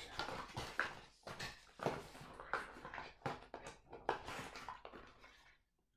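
Cardboard box and packaging being handled and opened: a string of irregular rustles, scrapes and taps.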